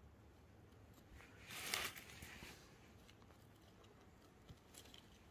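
A hand brushes through dry leaves and pine needles on the forest floor, giving a brief rustle about two seconds in and a few faint crackles near the end. Otherwise it is near silence.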